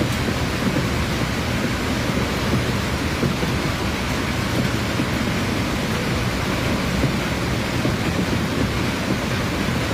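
A dense barrage of aerial firework shells launching and bursting together, merging into a steady rumble with no single bang standing out.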